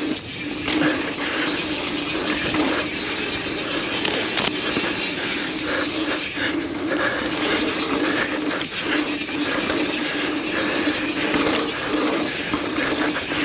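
Yeti SB150 full-suspension mountain bike descending a dirt trail at speed: steady rolling tyre noise and the bike's rattle and small knocks, with wind rushing over the microphone.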